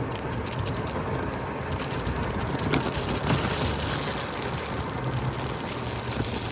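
Wind buffeting the microphone while riding along a paved trail, over a steady low rumble of wheels on the path, with a few small clicks and bumps.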